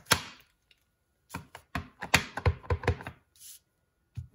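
A clear acrylic stamp block tapped again and again against a Real Red ink pad, a quick run of light taps, then pressed onto cardstock with a knock near the end. A single sharp knock comes at the start.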